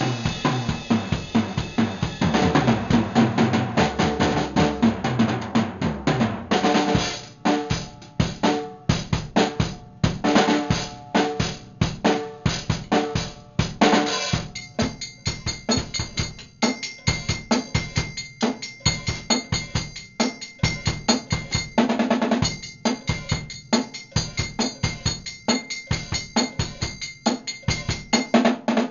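Acoustic drum kit played solo: a dense run of snare, bass drum and cymbal hits for the first several seconds, then a steadier beat of separate strokes. From about halfway a steady high ring sounds under the beat.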